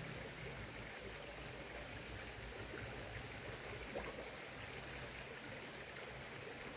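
Steady wash of flowing river water, with a single faint knock about four seconds in.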